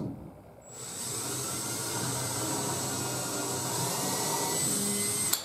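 Cordless drill boring a pilot hole into wood, its motor starting about a second in, running steadily with a high whine, and stopping abruptly just before the end.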